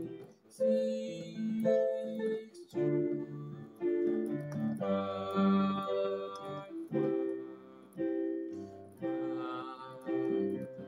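Electronic keyboard playing a chord progression in C major, each chord held with a low bass note under it. A new chord comes in about every one to two seconds.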